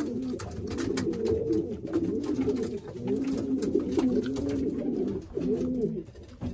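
Several male racing pigeons cooing over one another, phrases overlapping with scattered light clicks: males calling for mates and contesting the nest boxes.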